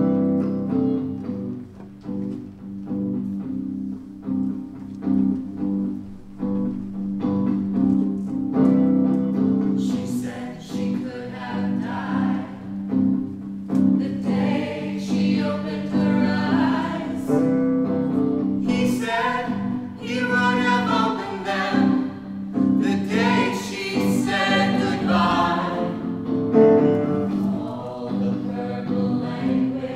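Music: a steady low drone held throughout, with several voices singing together over it from about nine seconds in.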